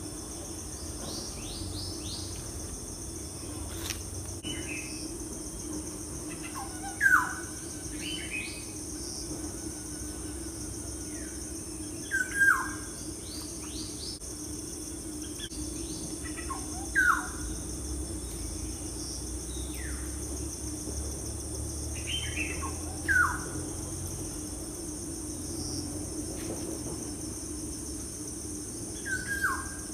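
Wild birds calling: a loud, short, falling call repeats about every five seconds, with fainter, higher chirps in between. Under them runs a steady, high-pitched drone of insects.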